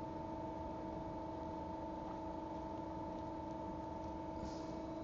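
Steady electrical machine hum in a workshop, with a few faint light ticks near the end.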